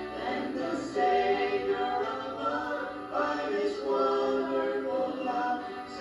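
A small group of men and women singing a hymn in close harmony, holding each note for about a second before moving to the next chord.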